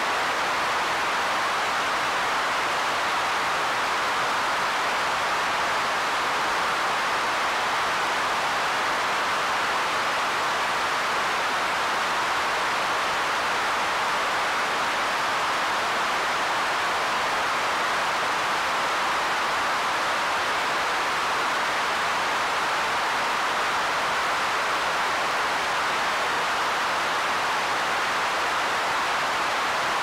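Pink noise from a Roland SH-1000 synthesizer's noise generator: a steady, even hiss, strongest in the middle range and thin in the bass, unchanging in level.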